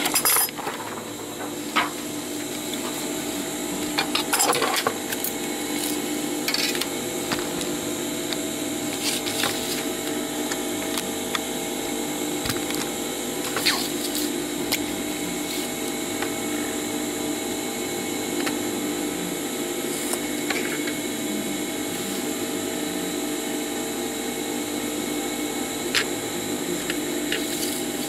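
A steady mechanical hum under scattered sharp clicks and taps from a plastic sheet being cut with scissors and worked with a plastic set square and marker.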